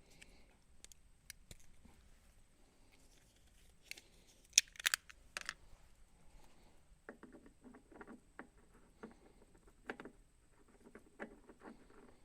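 Sharp clicks, then a run of quick, irregular clicking and rattling from small fittings being handled and tried on a pressure washer; the loudest clicks come about five seconds in.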